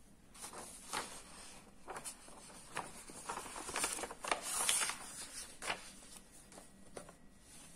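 Loose paper sheets rustling and sliding as they are handled and laid flat over an open workbook: a string of short rustles, loudest about four to five seconds in.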